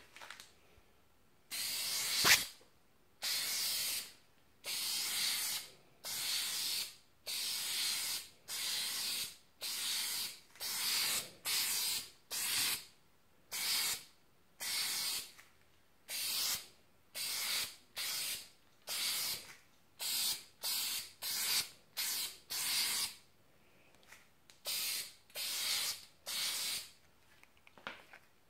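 Aerosol rattle can spraying clear coat in a long series of short hissing bursts, each under a second and coming about once a second: light passes laid over fresh paint. A single sharp click sounds near the start of the first burst.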